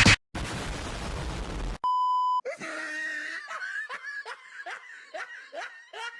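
A burst of hiss-like noise, then a short steady censor-style bleep, then a run of rapid, quickly repeating laughter, several 'ha's a second.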